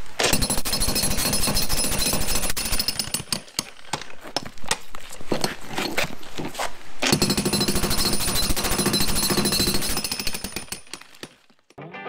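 Electric jackhammer breaking up a concrete slab, its rapid blows running in spells. It runs steadily for about three seconds, then stutters on and off for a few seconds, then runs steadily again before dying away about a second before the end.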